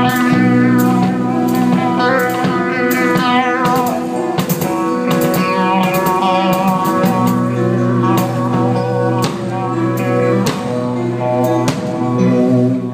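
Live band music: an electric guitar plays lead, with held notes that waver in pitch, over bass and drums with frequent cymbal and drum hits.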